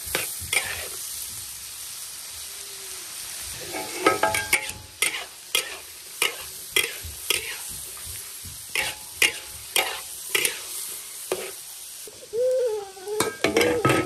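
Cured pork, lettuce stem and corn sizzling in lard in a hot iron wok, with a metal spatula scraping and knocking against the pan as it stir-fries them. The sizzle is steady under the spatula strokes, which come quickly, two or three a second, through the middle.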